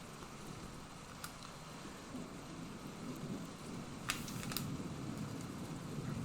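Trading cards being handled and leafed through, a soft rustling with two sharp card flicks about four seconds in.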